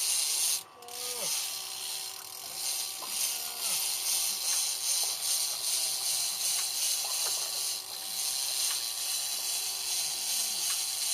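Fishing reel being cranked: a steady, fast ratcheting whir that stops briefly about half a second in, then runs on, with a few faint clicks.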